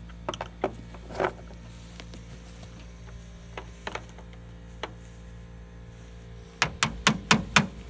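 Scattered sharp clicks and knocks of hand tools on metal, then a quick run of five louder knocks near the end, over a steady low hum.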